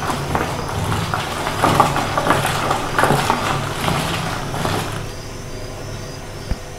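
Manual pull-cord food chopper being pulled over and over, its cord whirring and blades spinning as they chop tomatoes, in quick strokes about two to three a second that stop about five seconds in.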